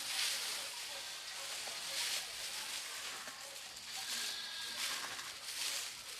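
Wood shavings pouring out of a plastic tub onto a pen floor: a dry, rustling hiss that swells and eases several times as the tub is tipped.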